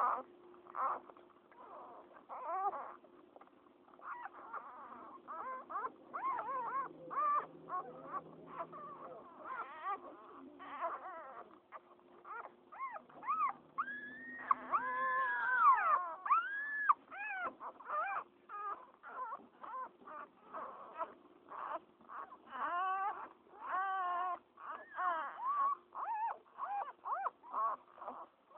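Newborn pit bull puppies squeaking and whimpering in many short, high cries, with a longer, louder cry about halfway through.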